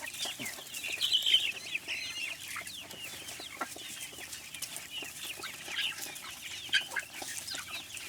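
A flock of backyard chickens clucking and chirping: a dense, continuous chatter of short high calls, with a few louder calls standing out about a second in and near seven seconds.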